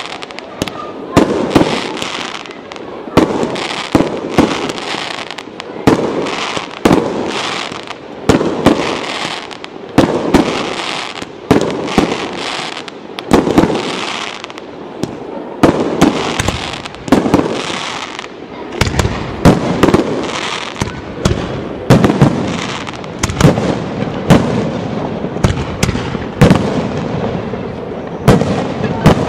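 Professional aerial firework shells bursting in rapid succession: sharp bangs about once or twice a second, each trailing off in a reverberating decay.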